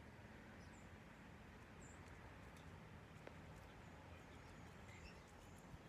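Near silence outdoors, with a few faint, brief high-pitched bird chirps scattered through it.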